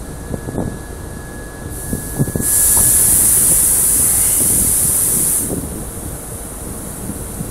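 Loud, steady hiss of pressure being released at a railway station, lasting about three seconds from about two and a half seconds in. Wind buffets the microphone throughout.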